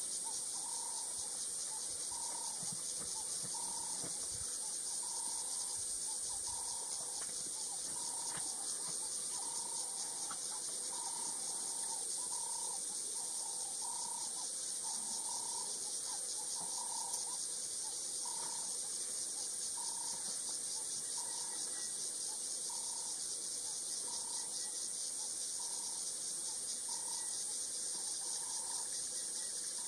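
Steady high-pitched chorus of bush insects, with a short lower call repeating roughly once a second.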